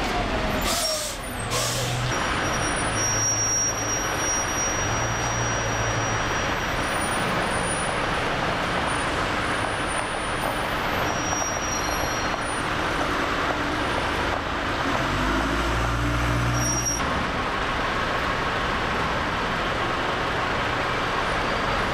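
Busy bus-station traffic: diesel engines of red double-decker buses and black cabs running and passing close, under a steady wash of street noise. There are two short hisses about a second in. About three quarters of the way through, a heavy engine gets louder and rises in pitch as a vehicle pulls away.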